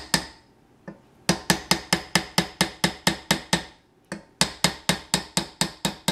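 Light, rapid taps of a small mallet on a wooden dowel, about four a second, driving a plastic squirrel-cage blower wheel down onto its motor shaft. The taps come in two runs, after about a second and again after about four seconds.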